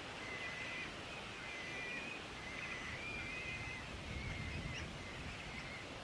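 Thin, high, steady whistled notes repeated one after another, likely crested bellbird nestlings begging at the nest as the parent arrives. A brief low rumble comes about four seconds in.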